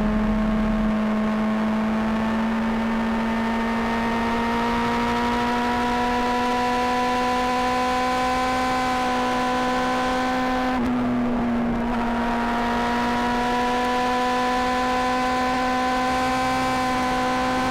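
Honda CBR600RR inline-four engine heard close to its exhaust, running at steady high revs under way, its pitch creeping slowly upward. About eleven seconds in the throttle is briefly eased, then the note picks up again.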